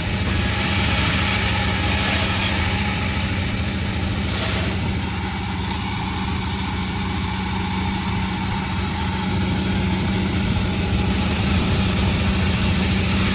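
Sawmill machinery running steadily, its engine keeping up a constant low hum.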